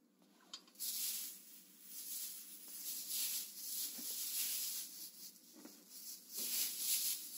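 Bedding rustling in irregular swishes as a blanket is pulled down and a bath blanket is spread over the bed, starting about a second in.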